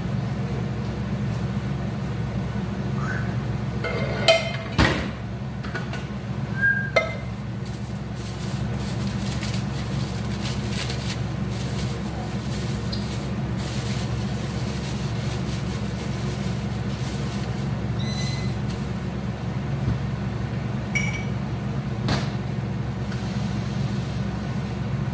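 Steady low mechanical hum, with scattered clinks and clatters of kitchenware. The loudest pair comes about four to five seconds in, and a few more, one of them ringing, come later on.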